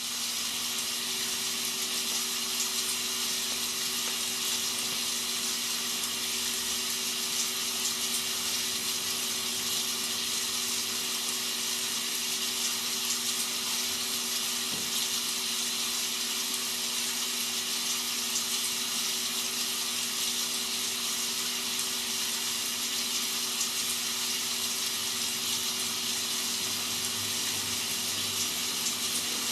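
Rain sound effect used as white noise: a steady, even hiss of falling rain, with a faint steady low hum beneath it.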